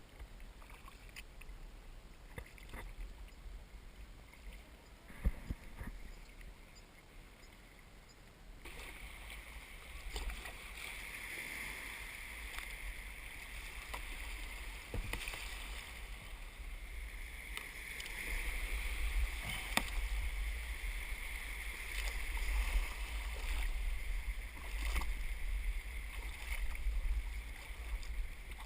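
Kayak paddling on open water: water swishing and splashing with scattered small knocks over a steady low rumble, louder from about a third of the way in.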